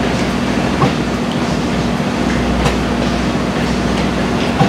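Machinery running steadily with a low hum, broken by three sharp clicks or knocks.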